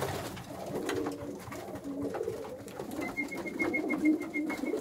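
Homing pigeons cooing in the loft, low rolling coos overlapping one another. About three seconds in, a faint, fast, high-pitched ticking starts, about seven ticks a second.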